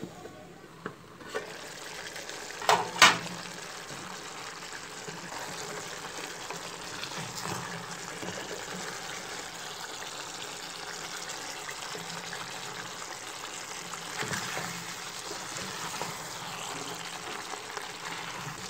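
Turkey stew simmering in an aluminium pot with a steady bubbling hiss after a little water has been added. A few sharp metallic clanks of the pot lid come in the first three seconds, the loudest just before the bubbling settles in.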